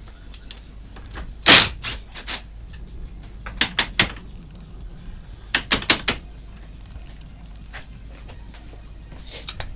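Sharp knocks in three short runs of three or four strikes each, over a steady low hum.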